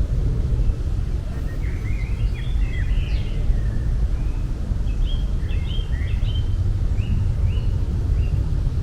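Small birds chirping in quick clusters over a steady low rumble. The chirps come in two busy patches, about two seconds in and again between five and seven seconds.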